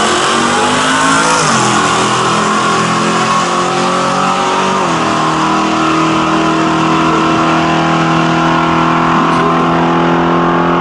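Ford compact pickup truck's engine at full throttle down a drag strip, the revs climbing and dropping sharply twice as it shifts gears, then holding steady and high as it pulls away.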